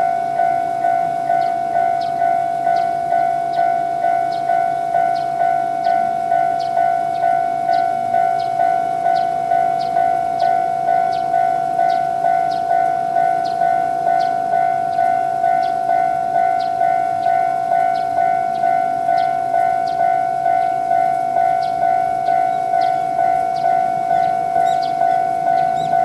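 Japanese railway level-crossing warning bell ringing steadily, an electronic 'kan-kan' tone repeating about twice a second: the crossing's standard alarm sound, warning that a train is approaching.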